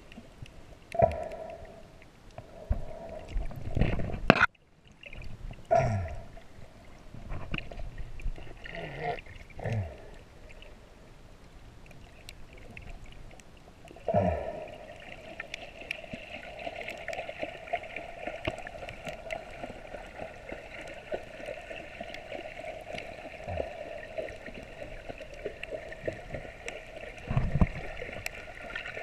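Water heard underwater by the camera: muffled gurgling and swishing with a few soft knocks, settling into a steadier muffled rush about halfway through.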